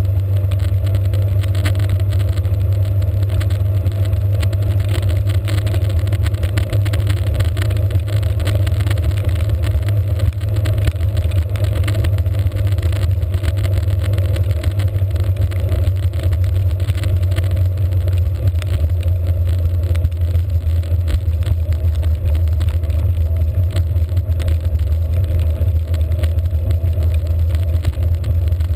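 Steady low rumble of wind and road noise on a handlebar-mounted GoPro as the bicycle rides along a wet road at speed.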